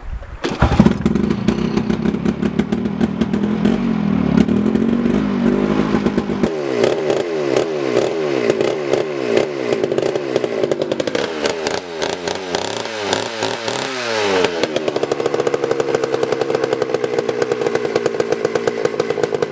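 Homelite 330 two-stroke chainsaw, bar and chain removed, catching on a pull of the recoil starter about half a second in and running. Its speed rises and falls repeatedly as the throttle is worked, then holds steady for the last five seconds. The carburettor screws are at a baseline setting of two turns out, before tuning.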